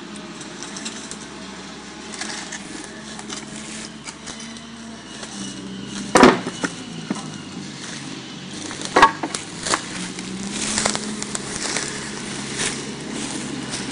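Fallen branches and brush being raked and gathered: rustling, scraping and snapping of dry sticks. Two sharp wooden knocks stand out, about six and nine seconds in, over a steady low hum.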